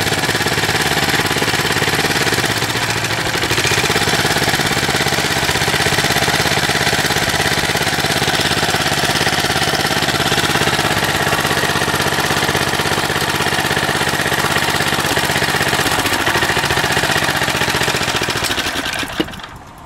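Briggs & Stratton 3 HP single-cylinder engine running steadily after a carburettor rebuild, briefly dipping in speed twice. It is shut off with a click near the end and the sound falls away.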